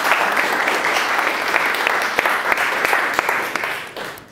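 Audience applauding: a room of people clapping steadily, fading out near the end.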